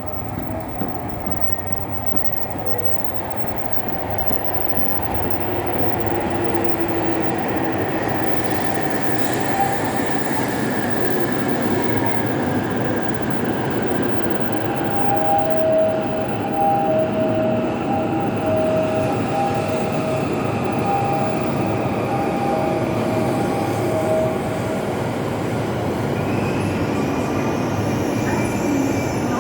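Hokuriku Shinkansen train running into the station and slowing, its motor whine gradually falling in pitch over the rumble of the wheels. A repeating two-note beep sounds for about ten seconds midway.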